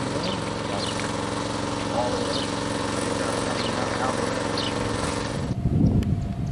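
A steady machine hum made of several even tones, with faint voices over it. About five and a half seconds in it cuts off abruptly to uneven, low outdoor rumbling and rustling.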